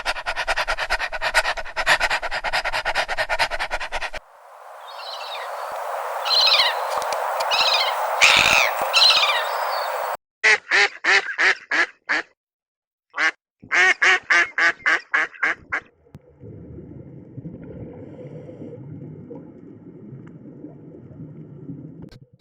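Several short clips of animal calls cut together: a run of rapid, evenly repeated calls, then high calls over steady noise, then two runs of pulsed calls at about four to five a second, ending in a low steady background hum.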